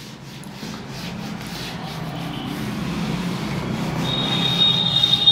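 Whiteboard duster rubbing back and forth across a whiteboard as it is wiped clean, the rubbing growing louder, with a high steady squeak near the end.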